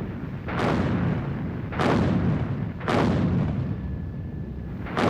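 Artillery fire and explosions: four heavy blasts about a second apart, each trailing off into a low rolling rumble that carries on between them.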